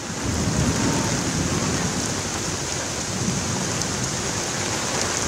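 Heavy rain falling steadily, an even, unbroken wash of downpour.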